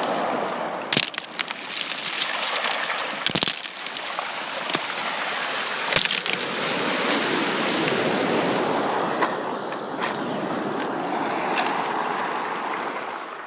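Sea waves washing onto a beach: a steady surf wash that swells and eases over several seconds, with scattered sharp crackles and clicks.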